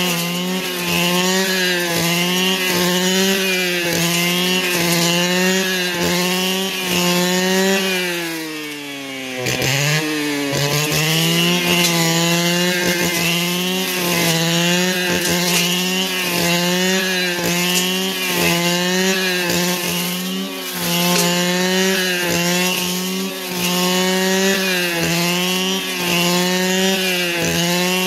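Two-stroke brush cutter engine running at high revs under load, its pitch wavering up and down about once a second as the cutting load changes. About eight seconds in the throttle is eased off, the revs sink, and then it revs back up to full speed.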